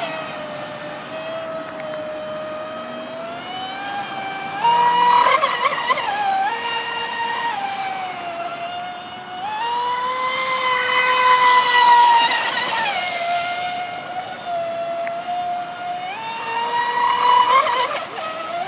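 Whine of an RC P-Mono racing boat's NEU 1527 brushless electric motor running on 4S LiPo power, the pitch climbing with throttle three times (about five, ten and seventeen seconds in) and falling back between.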